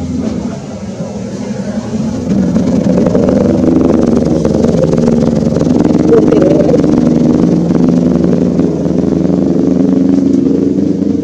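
A motor vehicle engine running steadily, growing louder about two seconds in and staying loud.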